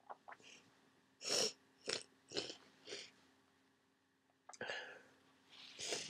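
A person with a heavy cold and congested sinuses sniffing and breathing hard through a stuffed nose: four short noisy sniffs a second or so in, the first the loudest, then more breathing building near the end.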